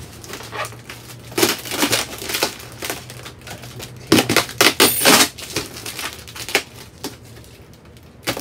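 Plastic bubble wrap crinkling and crackling as it is handled and picked open by hand, in irregular bouts, loudest about one and a half seconds in and again around four to five seconds in.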